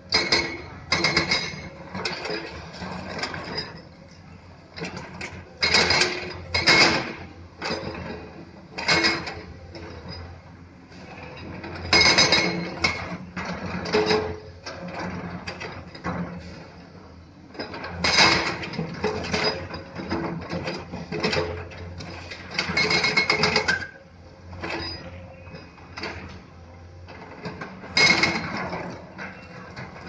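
Komatsu hydraulic excavators working among stone: bursts of clanking and scraping, steel bucket on rock, every few seconds over the steady drone of the diesel engines.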